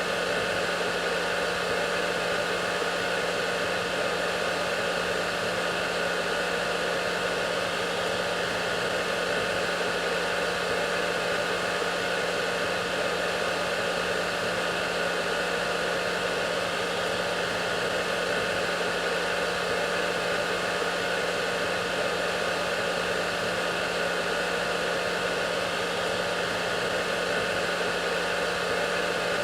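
Hair dryer running steadily: an even rush of blown air with a steady low motor hum and fainter whining tones above it, unchanging throughout.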